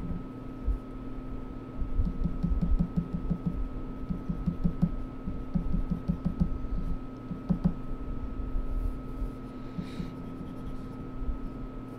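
A pen drawing on paper close to the microphone: runs of quick, short scratching strokes between about two and eight seconds in, over a steady electrical hum.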